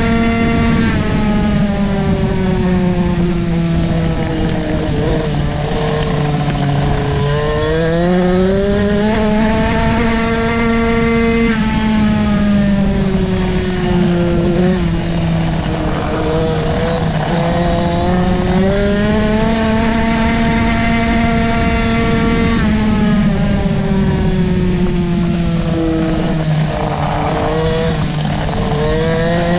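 Onboard sound of a 65cc two-stroke dirt-track motorcycle racing laps. The engine pitch holds high down each straight, sinks over several seconds as the rider rolls off into the turns, and climbs again on the way out, about three times over.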